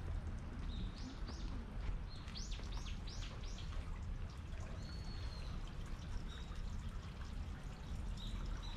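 A small bird calling in short, high chirps: a pair about a second in, a quick run of four about two and a half seconds in, then scattered single notes. The calls sit over a steady low background rumble.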